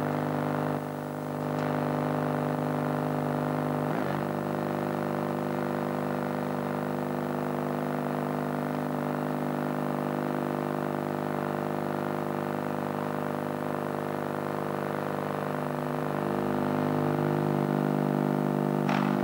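Sustained synthesizer music: a steady held chord of several tones that shifts to a new chord about three-quarters of the way through, with a small click about four seconds in.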